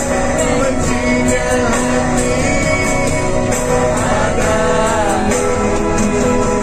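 Karaoke backing music with a man singing into a handheld microphone.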